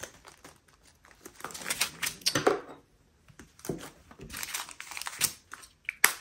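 Small plastic bags of leftover diamond-painting drills crinkling as they are handled, in irregular bursts, with a sharp click near the end.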